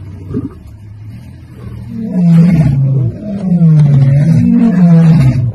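Male lion roaring: loud, low, drawn-out moaning calls that rise and fall in pitch, starting about two seconds in and repeating with short breaks.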